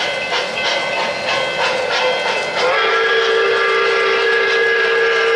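O-gauge model steam locomotive sound system: rhythmic steam chuffing over running-train noise, then about two and a half seconds in a steady whistle of several tones at once starts and holds.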